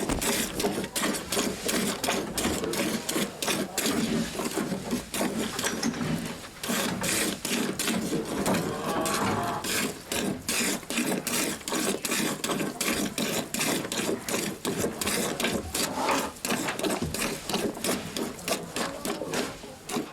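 A cow being milked: a rapid, uneven rhythm of spurts of milk over a steady hiss.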